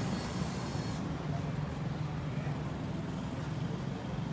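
Steady low mechanical hum, with a thin high-pitched whine during the first second.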